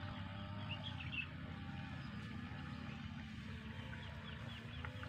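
Outdoor ambience: a steady low rumble of wind on the microphone, with faint wavering bird calls and a few short high chirps about a second in.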